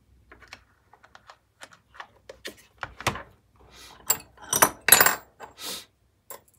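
Small black plastic speaker box being handled as its lid is fitted: a run of light plastic clicks and knocks. About four seconds in there is a louder clatter of small hard parts as screws and tools are picked up off the workbench.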